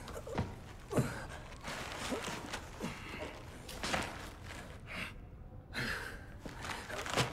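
A man's ragged, gasping breaths, a string of short heaving gasps and sighs, several of them falling in pitch.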